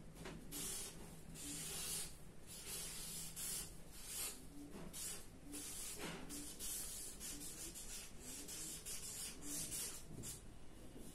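Marker pen writing on a sheet of paper, a run of short, irregular scratchy strokes as letters are drawn.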